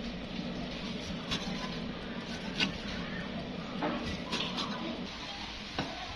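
Cleaver slicing raw beef on a wooden chopping board, its blade knocking against the board a few times at irregular intervals over a steady low background hum.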